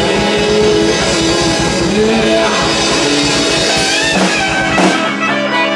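Rock band playing live on two electric guitars and a drum kit: fast, steady drumming under distorted guitar chords, the drums stopping about five seconds in while the guitars ring on.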